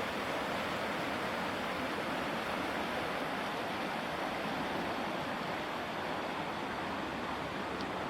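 Sandy River flowing: a steady, even rush of moving water.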